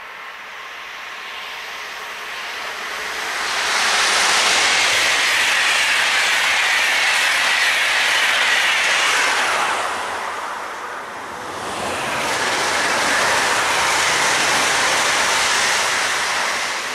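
Intercity train hauled by an electric locomotive passing at speed, a rushing wheel-on-rail noise with some clatter that swells about three and a half seconds in and dips about ten seconds in. A red regional electric multiple unit then passes, bringing a second swell that fades near the end.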